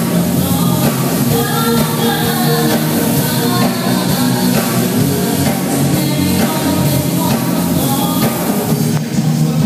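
Live band playing a pop song, loud and steady, with a woman singing lead into a microphone.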